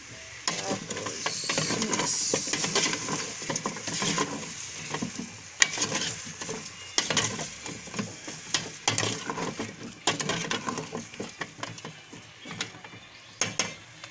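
Metal spatula stirring and scraping chicken feet around an aluminium pot, with clinks and knocks against the pot wall. Under it the feet sizzle as they fry in soy sauce, the sizzle strongest in the first few seconds and then fading.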